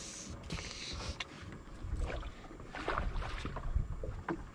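Wind rumbling on the microphone aboard a small fishing boat, with a short hiss near the start and scattered knocks and handling noises as a northern pike is released.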